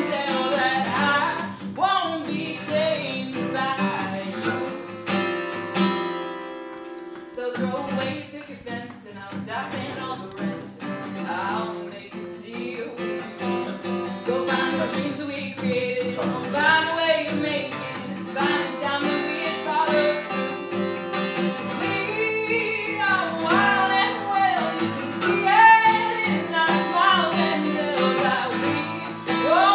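A woman singing a song, accompanied by a steel-string acoustic guitar.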